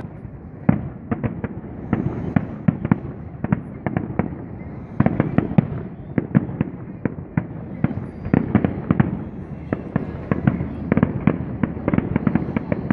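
Aerial fireworks bursting: a rapid, irregular run of bangs and crackles that bunches into thicker volleys several times, about five seconds in, around eight seconds and again near the end.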